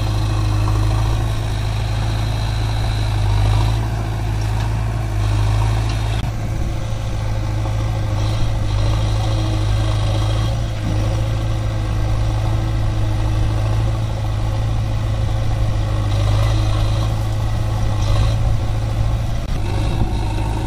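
Eicher 551 tractor's diesel engine running steadily at low revs, beside a JCB backhoe loader's diesel.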